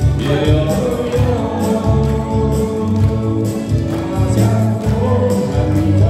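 A man singing a Chinese song into a microphone over a karaoke backing track with a steady beat, amplified through the hall's PA speakers.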